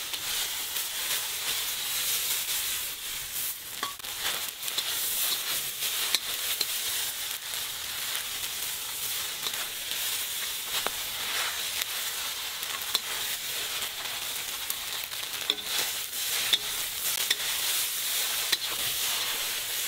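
Rice vermicelli frying in a wok over low heat: a steady sizzling hiss, broken by scattered light clicks and scrapes as long chopsticks toss the noodles against the wok.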